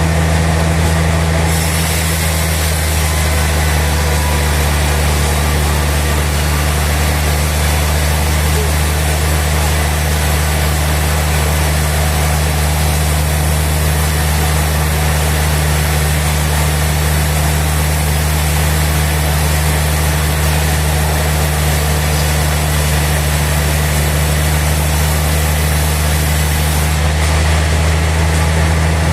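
Sawmill machinery running steadily with a deep hum. A higher hiss joins about a second and a half in and stops shortly before the end.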